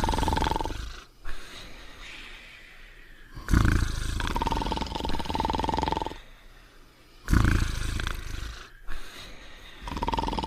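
Cartoon dog snoring in a steady cycle, a loud snore every three to four seconds. Each snore carries a steady high whistle, and the stretches between are quieter.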